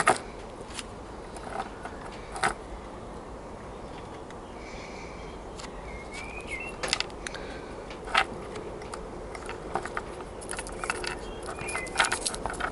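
Small plastic clicks and taps from a model locomotive's chassis and its sound decoder being handled with the fingers. A few separate clicks early, then a quick run of small clicks and rattles near the end.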